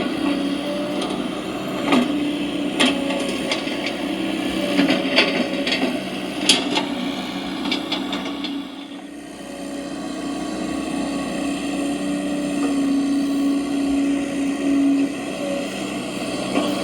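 Radio-controlled construction models working: a steady electric-motor whine with scattered clicks and knocks, dipping briefly about halfway through before picking up again.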